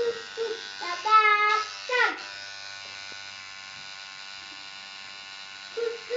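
Tattoo machine buzzing steadily as the needle works ink into skin. A child's high voice calls out briefly in the first two seconds and again near the end.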